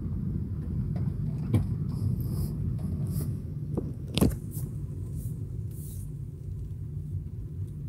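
Steady low rumble of a car's engine and tyres heard from inside the cabin while driving, with a few sharp clicks, the loudest about four seconds in.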